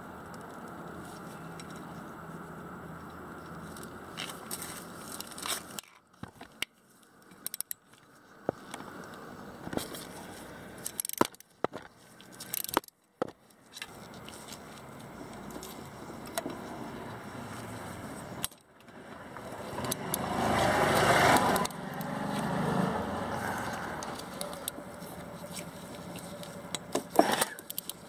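Socket ratchet clicking and steel tools scraping and knocking on metal as the exhaust muffler bolts of a Yamaha Axis 90 scooter are undone, in scattered sharp clicks with a few short drop-outs. Past the middle a louder rushing noise swells and fades over a few seconds.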